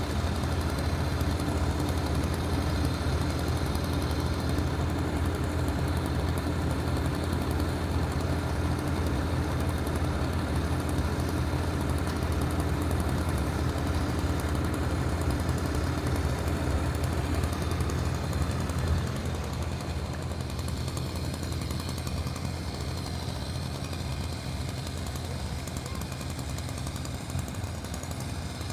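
Engine-driven tree-removal machinery running steadily with a low drone, easing off slightly about two-thirds of the way through.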